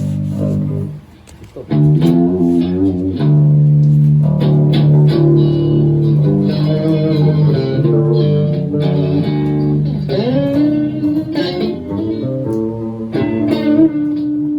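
Improvised live instrumental music led by guitar, with electric guitar and bass playing sustained, bending notes, and a brief drop in level about a second in.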